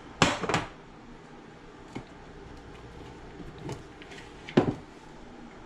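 Spoon knocking against a pan while solid coconut oil is scooped and tapped off into it: two sharp knocks in quick succession at the start, a few lighter taps, and another sharp knock near the end.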